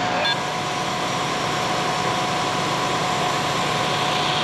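Fire engine's diesel engine running steadily, a constant drone with a steady tone held over it. A few short high beeps sound just after the start.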